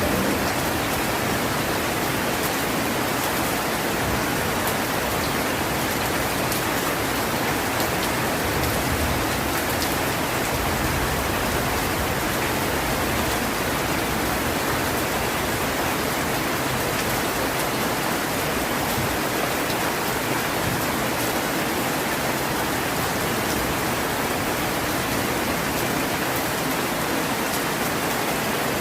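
Heavy rain falling steadily: an even hiss with faint ticks of individual drops.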